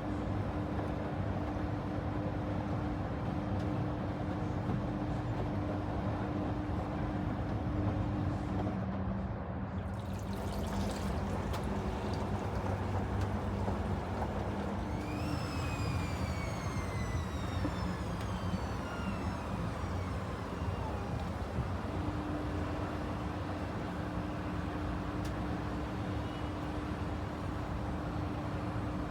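Panasonic XQG32-A312D compact washing machine running, with a steady hum and the swish of water. About halfway through, a motor whine rises briefly and then falls slowly in pitch over several seconds.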